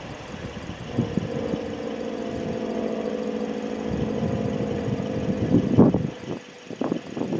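Federal Signal SD10 outdoor warning siren sounding a steady drone, fading out about six seconds in, with a few short thumps near the end.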